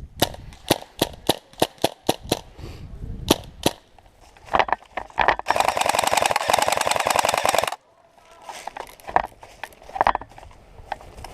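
Airsoft guns firing: a string of single shots over the first few seconds, then a rapid full-auto burst of about two seconds near the middle that cuts off sharply.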